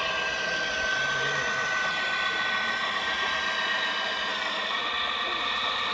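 Hydraulic pump of a radio-controlled Volvo excavator model running with a steady mechanical whine as it works its grab arm. The strongest high tone in the whine stops about four and a half seconds in.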